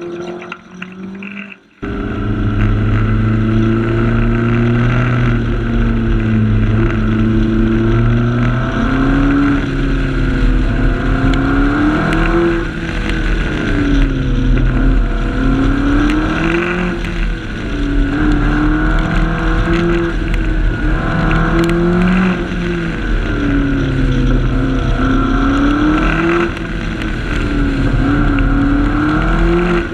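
McLaren 12C's twin-turbo V8 heard from the rear of the car. It comes in loudly about two seconds in, then its pitch rises and falls over and over as the car accelerates out of bends and lifts off into them.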